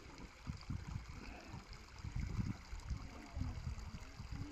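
Faint ambience beside a shallow stream: water running over a stony bed, with irregular low rumbles.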